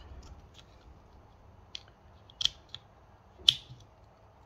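Small airsoft pistol hop-up parts clicking and snapping together as a TDC hop-up unit is clipped onto the Mk23's hop-up chamber. Light scattered clicks, with sharper snaps about two and a half and three and a half seconds in, the last the loudest.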